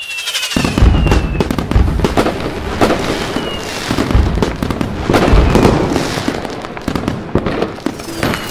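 Fireworks going off: whistling rockets that fall in pitch, and a dense run of bangs and crackling bursts.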